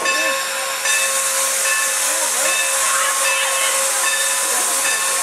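Steam locomotive standing at the platform, venting steam with a loud, steady hiss that swells about a second in, over a steady high whine.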